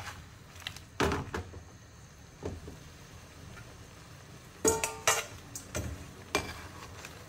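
Metal spoon and perforated skimmer scraping and knocking against an aluminium frying pan as mantis shrimp are turned in hot oil, with a low sizzle underneath. The knocks are scattered, and the loudest come about five seconds in with a brief metallic ring.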